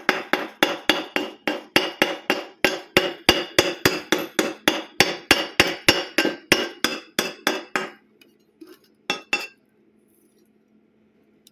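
Hammer striking metal in a fast, steady rhythm of about three or four ringing blows a second, stopping about eight seconds in; two more blows follow a second later.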